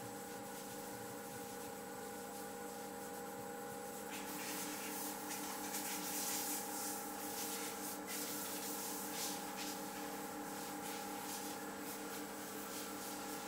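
Flat wooden stir stick scraping and swishing around a plastic bucket as tinted epoxy resin is mixed, starting about four seconds in. A steady hum of several tones runs underneath.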